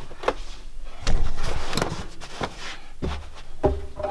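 Jeep Wrangler cargo-area carpet mat being slid and dragged back into place over the floor. There are scattered knocks and clicks, a heavier low thump about a second in, and more low thumps near three seconds.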